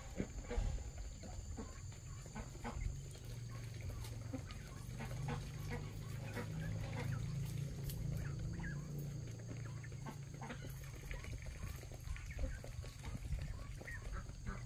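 Chickens clucking, with many short clicks and knocks throughout and a low steady rumble underneath, strongest midway.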